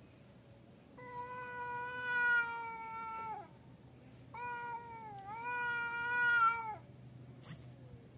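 Two long, drawn-out yowls from rival tomcats squaring off nose to nose: the threat caterwaul of males contesting territory. The second yowl dips in pitch midway and rises again.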